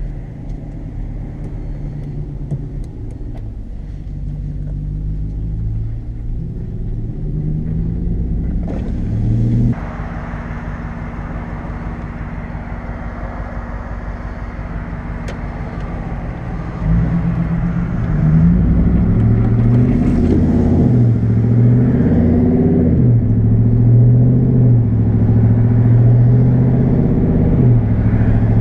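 Ram pickup truck's engine running while driving, its note rising and falling, with a sudden change in the sound about nine seconds in and a louder stretch from about seventeen seconds on.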